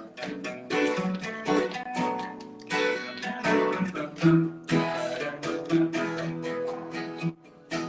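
Acoustic guitar strumming chords in a steady rhythm, an instrumental passage of a live song with no singing.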